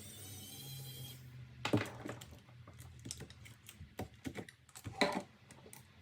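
Small hard clicks, taps and a few louder knocks of laptop parts and drive hardware being handled during a hard drive to SSD swap, with irregular spacing.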